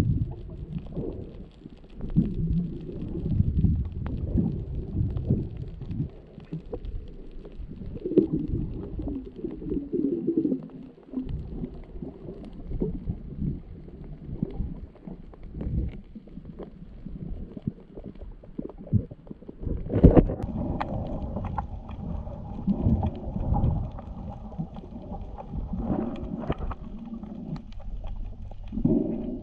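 Muffled underwater sound picked up by an action camera in its waterproof housing: low, irregular rumbling and sloshing of water moving past as the diver swims, with small clicks. A sharp knock about twenty seconds in, after which the rumbling changes.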